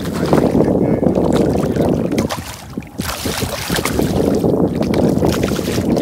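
Wind buffeting the microphone, with water sloshing and splashing; the noise rises and falls and briefly dips about halfway through.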